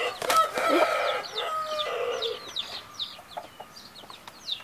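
Índio Gigante hens squawking and clucking as they fight. Through the second half, many short, high, falling chick peeps follow one another.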